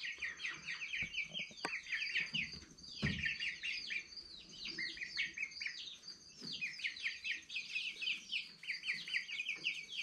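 A pen of young light Sussex and black leghorn chickens peeping together: a constant chorus of short, high cheeps, each falling in pitch.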